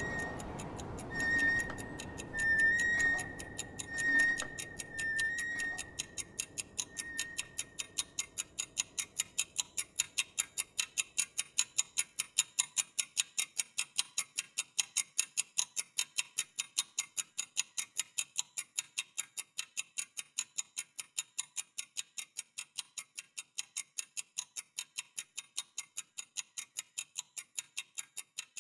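Steady mechanical ticking, about four ticks a second, like a watch ticking, that grows louder over the first dozen seconds and then holds steady. Over the first several seconds a high held note and soft music fade out under it.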